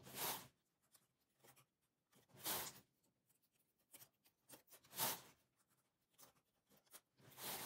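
Soft scratchy strokes from hands working stitches and yarn onto the metal needles of a knitting machine, about one every two and a half seconds.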